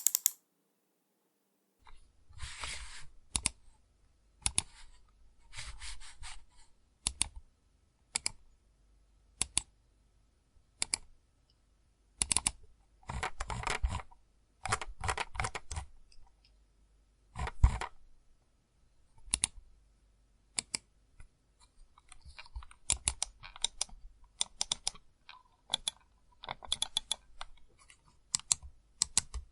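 Computer mouse clicks: single sharp clicks alternating with dense runs of rapid clicking a second or two long, separated by short pauses.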